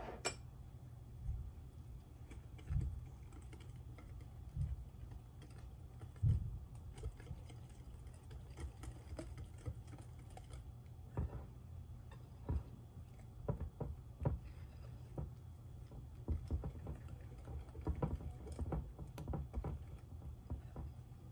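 Wire whisk clicking and scraping against a glass mixing bowl as it stirs flour, sugar and melted butter into a batter: irregular light clicks that come thicker in the second half, over a low steady hum.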